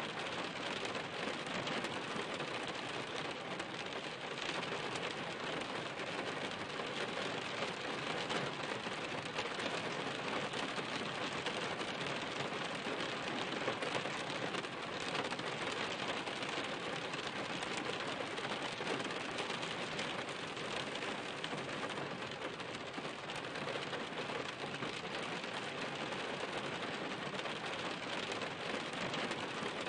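Steady rain falling on a surface: a dense, even hiss of many small drops striking.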